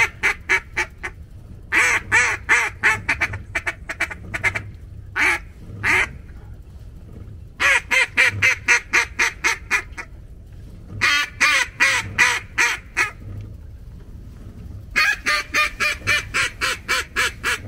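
Duck call blown in runs of rapid quacks, about five a second, each run lasting two or three seconds with short pauses between.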